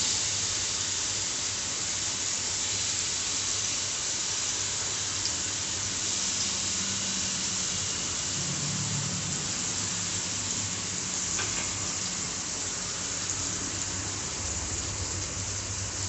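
Banana slices sizzling in ghee in a non-stick frying pan: a steady, even frying hiss, with a faint low hum underneath.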